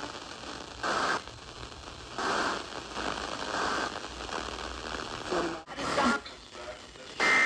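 Radio receiver hiss and static between broadcasts, with several short, louder bursts of noise. A loud, steady, high tone starts just before the end.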